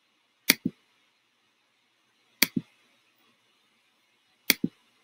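Three quick double clicks of a computer pointer button, about two seconds apart, each a sharp click followed a fraction of a second later by a softer, duller one.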